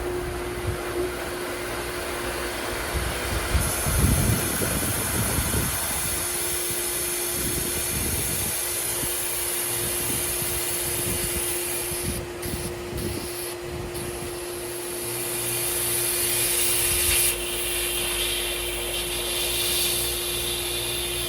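Pool pump running with a steady hum while water rushes and gurgles into the DE filter tank as it fills. A high hiss joins about four seconds in.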